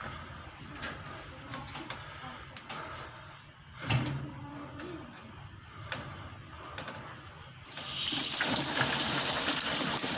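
Water starts to run with a steady rushing noise about eight seconds in, after a few scattered clicks and knocks.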